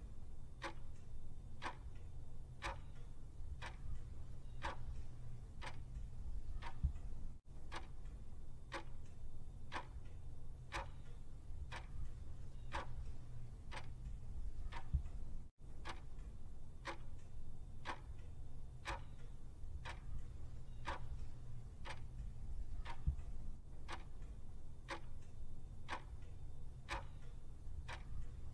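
Clock-ticking sound effect marking a 30-second answer countdown timer. An even, steady tick comes a little faster than once a second over a low hum, and it cuts out for an instant twice.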